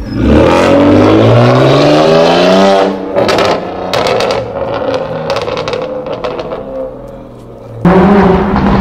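BMW coupe's engine accelerating hard, its note rising for about three seconds, then lifting off into a run of exhaust pops and crackles. Near the end a Lamborghini Huracán engine comes in suddenly, loud and steady.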